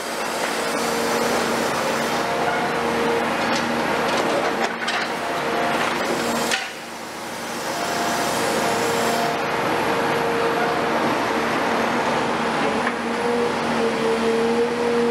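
Caterpillar 336F long-front demolition excavator's Cat C9.3 diesel running under load with a steady whine, while its hydraulic crusher jaws bite through concrete floor slabs: a continuous crunching and clatter of broken concrete, with several sharp cracks, the loudest about six and a half seconds in.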